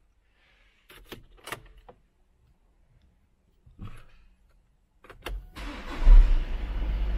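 A few clicks, then a Volkswagen turbo-diesel engine cranks briefly and fires about five and a half seconds in, settling into a steady idle. The battery sags to about 8.8 volts while cranking, which the owner takes as a sign it needs charging or replacing.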